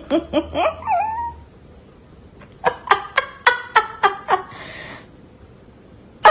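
A cat meowing in short, quick calls: a few at the start, then a rapid run of about eight.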